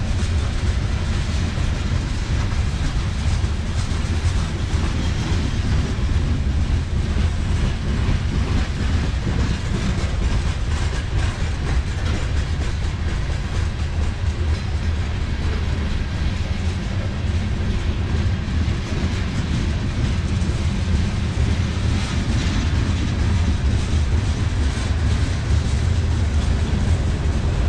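Freight cars rolling steadily past, covered hoppers and then autorack cars: a constant low rumble of steel wheels on rail, with the click of wheels crossing rail joints.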